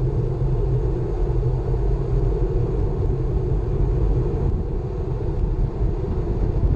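Steady wind rumble on the microphone of an action camera mounted on a moving bicycle.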